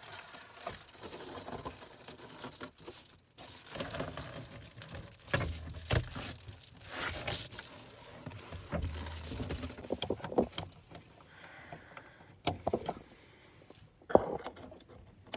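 Reflective bubble-foil insulation panel being pulled down and folded up by hand: irregular crinkling and rustling with scattered knocks, and a sharp metal clink of a carabiner near the end.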